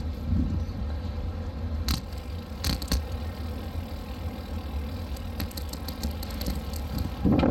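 Wind buffeting a phone's microphone while cycling: a steady low rumble. A few sharp clicks come about two and three seconds in, and a run of light ticks and rattles follows about five seconds in.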